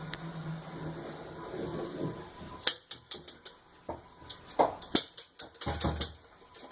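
Irregular sharp clicks and knocks of hard objects being handled, starting about two and a half seconds in, with a heavier thump near the end.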